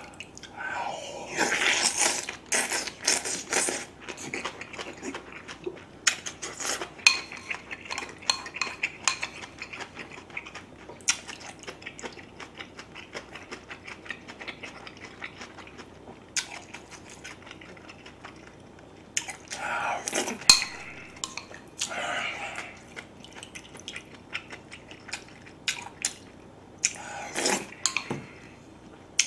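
A spoon clinking and scraping against a glazed ceramic bowl of seolleongtang, with repeated sharp clicks. Slurping and chewing of the soup and meat come in three longer bursts: near the start, about two-thirds of the way through, and near the end.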